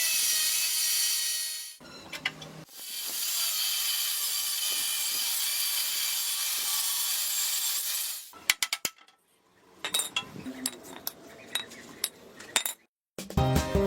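Steady high-pitched abrasive rasping of metal parts being worked by hand, briefly cut off about two seconds in. It is followed by a string of light metallic clinks and clicks of small parts and tools, and background music comes in at the very end.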